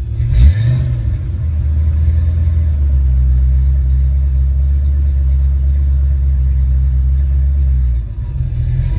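Ford Mustang 5.0 V8 idling steadily with a low rumble, after a brief sharp noise about half a second in; the level dips briefly near the end.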